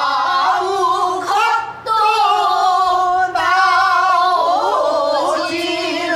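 A woman singing pansori in a slow, drawn-out line, holding long wavering notes and bending the pitch on sustained vowels, with short breaks about two and three seconds in.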